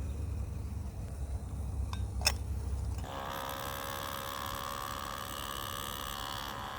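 A small handheld milk frother's motor whirring steadily for about four seconds, starting about three seconds in and cutting off near the end. Before it there is a low rumble and a sharp click.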